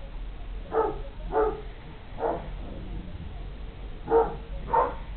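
Large sighthounds at play, an Irish Wolfhound and Scottish Deerhounds, with one barking: five short barks in two groups, three then two.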